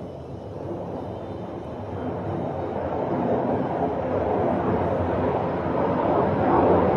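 Fighter jet engine noise, a steady rush that builds gradually louder as the aircraft approaches.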